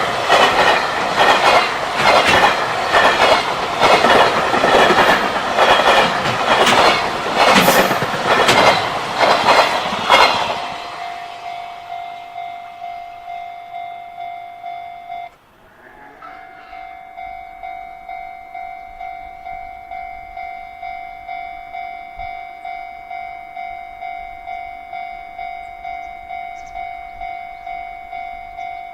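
A freight train's wagons rolling past with a rapid clatter of wheels over rail joints, fading out about ten seconds in. A level-crossing warning bell then rings on alone as a steady, evenly pulsing electronic tone, with a brief break about halfway through.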